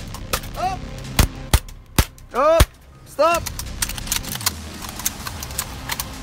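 Three sharp cracks like gunshots, close together about a second in, with short shouted calls between them, each rising then falling in pitch. After about three and a half seconds comes a run of faint quick clicks.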